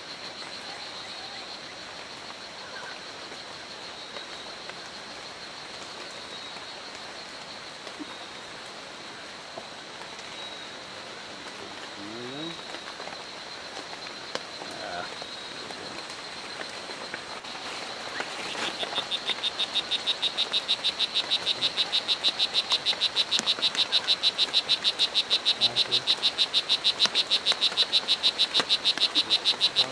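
A strawberry poison dart frog (Oophaga pumilio) calling: a rapid, even train of short, high chirps that starts about two-thirds of the way in and keeps going. Before it there is only a faint, steady high tone.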